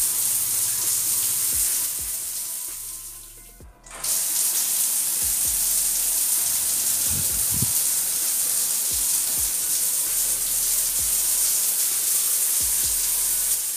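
Water from a homemade PVC-pipe rain shower head pouring in many thin streams onto a tiled floor: a steady hiss of falling water. It fades almost away for a moment about three to four seconds in, then comes back all at once.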